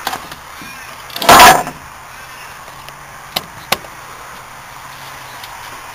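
A short, loud scraping clatter of metal scrap gear being handled, then two sharp clicks about a third of a second apart, over a faint low hum.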